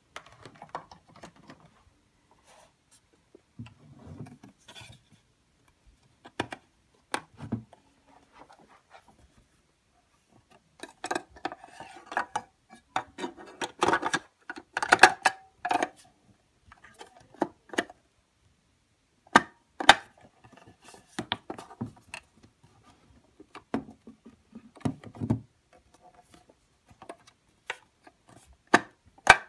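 Handling noises from an Ohuhu electric pencil sharpener with its motor off: scattered plastic clicks, knocks and rubbing as the unit is turned over and its clear plastic shavings tray is slid out and back in. The clicking is busiest in the middle.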